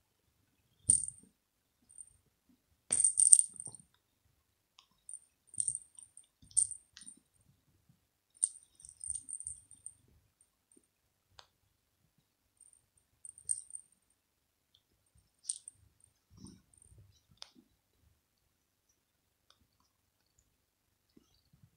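A small bell on a plush ball cat toy jingling in short, irregular bursts as a cat bats and bites it, loudest about three seconds in, with a few soft thumps of the toy against the cat house.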